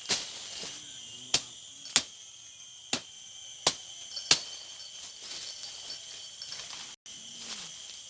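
Steady high-pitched chirring of night insects, crickets among them, with six sharp clicks or knocks in the first four and a half seconds.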